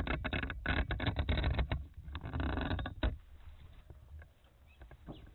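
Handling noise from the fishing rig: a flurry of clicks and rattles over a low rumble while the bait on the hook is straightened. About three seconds in it drops to quiet, with a few faint ticks.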